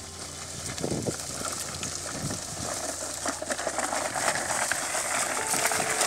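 Outdoor ambience during bullock ploughing: a steady hiss, like wind on the microphone, with scattered crackles and a few soft low thumps.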